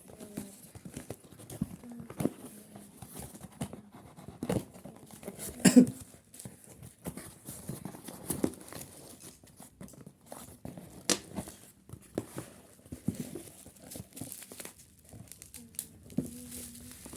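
Plastic wrap and cardboard packaging of a phone box being torn and crinkled by hand, with irregular clicks and knocks, the loudest about six seconds in.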